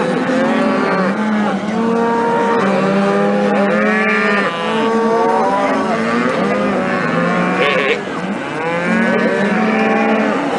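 A herd of cows and calves bawling without pause. Many moos overlap at different pitches, some low and held, others rising and falling.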